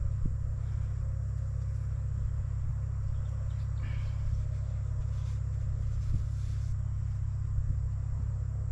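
A steady low rumble at an even level, with a few faint clicks.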